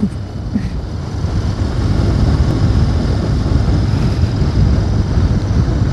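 Wind rushing over the microphone and the running engine of a motorcycle on the move, plausibly a Royal Enfield GT650's parallel twin. The noise swells over the first couple of seconds and then holds steady.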